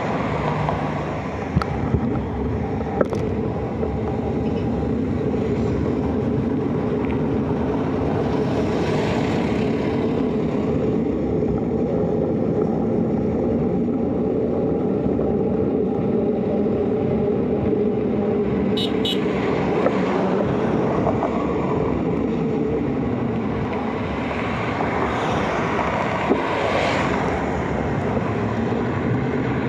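Steady road and wind rumble from riding a two-wheeler along a concrete road, with vehicles passing twice, about a third of the way in and near the end.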